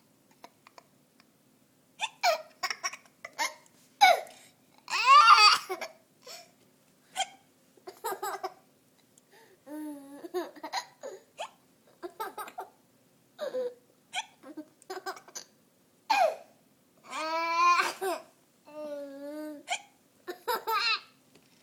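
A baby hiccuping and giggling: short, sharp hiccups between bursts of laughter and babbling, with longer laughing runs about five seconds in and again near the end.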